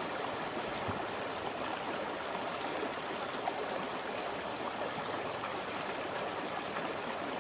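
River water rushing over a shallow, rocky riffle: a steady rushing noise.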